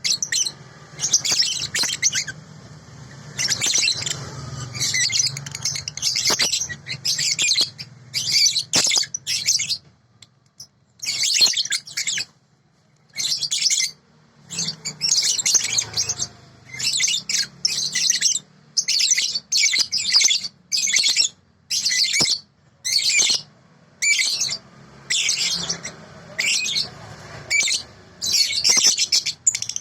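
Young lovebird (balibu) chirping in fast, high strings of notes, in short bursts with brief pauses, the continuous 'konslet' style of song.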